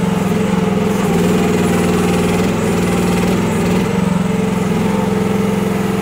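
Kymron RH14G one-ton mini excavator's small gasoline engine running steadily under hydraulic load as the arm digs and lifts a bucket of dirt out of the hole, its note shifting slightly a few times as the load changes.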